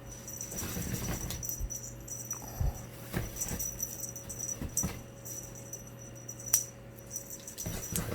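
Irregular rustling and light rattling of a cat's wand toy being worked against and around a cat tunnel, with a few short clicks, the sharpest about six and a half seconds in.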